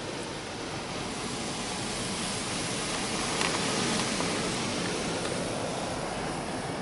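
Spot-free rinse water spraying from the arm of a Belanger Kondor KL1 touchless car wash onto the car's glass and body, heard from inside the car: an even hiss of spray that swells a little midway as the arm passes over.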